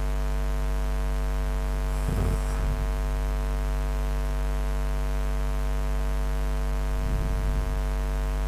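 Steady electrical mains hum with a stack of evenly spaced overtones, picked up by the recording, with a couple of faint brief noises about two and seven seconds in.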